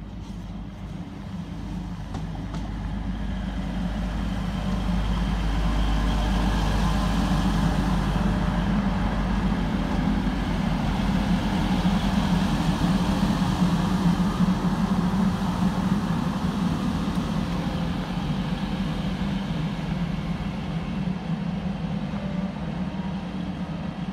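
TransPennine Express Class 185 diesel multiple unit running into the platform: a steady diesel engine hum with wheel and rail rumble. It swells as the train draws alongside, is loudest midway, then eases slightly toward the end.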